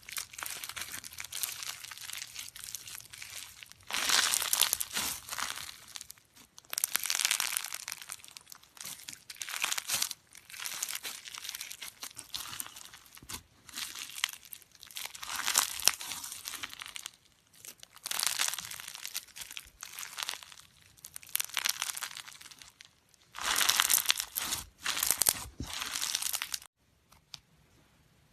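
Slime being squeezed and pressed by hand, giving repeated crackling, crinkling bursts every second or two; it goes quiet for a moment near the end.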